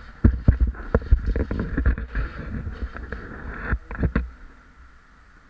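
Close thumps, knocks and scraping of a caver crawling over the rock and gravel of a cave passage, body and gear knocking against the camera; the knocking stops about four seconds in.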